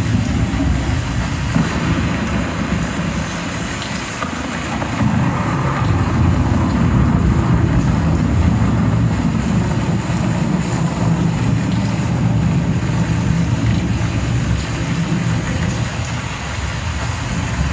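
Large arena crowd making a steady loud roar, heard mostly as a low rumble, swelling about five seconds in and easing slightly near the end.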